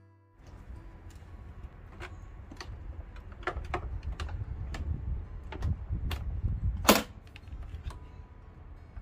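Clicks and knocks from a portable cool box being handled on its pull-out drawer, as the drawer is slid out and the lid and handles are worked, over a low rumble. The loudest knock comes about seven seconds in.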